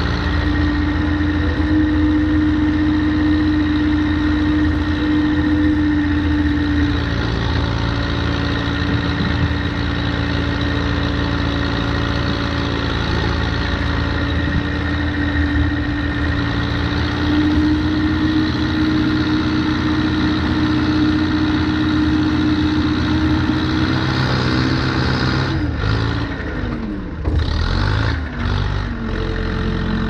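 The diesel engine of a 1979 Allis-Chalmers 715B backhoe runs at a steady, high engine speed while the loader bucket pushes snow. In the last few seconds the engine speed drops and picks up again several times.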